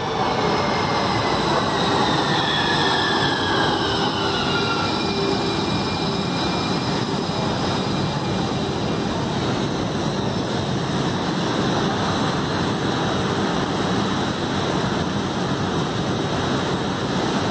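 Siemens LRV4 light rail train braking alongside an underground station platform: a whine falling in pitch over the first few seconds as it slows, then a steady rumble as the cars roll to a stop.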